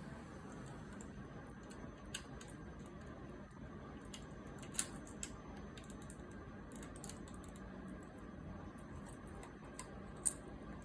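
Faint, irregular clicks and taps of plastic LEGO pieces being handled, a few sharper ones standing out, over a low steady hiss.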